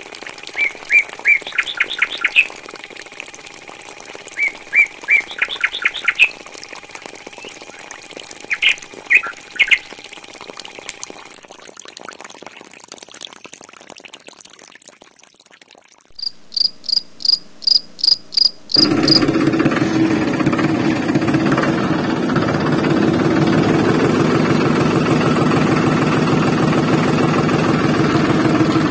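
Birds chirping in short clusters of calls, then after a quieter stretch a quick run of about nine high, evenly spaced chirps. About two-thirds through, a loud, steady, engine-like motor running with a fast even beat sets in.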